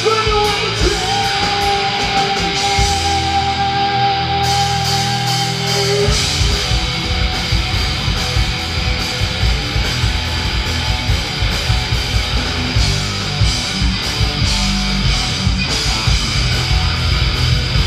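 Live heavy rock band with electric guitars, bass and drums playing loudly. A held guitar note rings over the first six seconds, then the full band comes in with drums.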